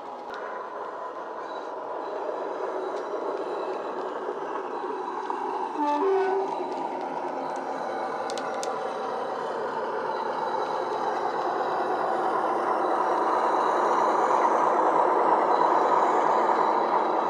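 Heljan Class 45 model locomotive's SWD DCC sound file playing Class 45 diesel engine sound through an EM1 speaker, with a brief two-tone horn about six seconds in. The engine sound grows steadily louder as the model comes close.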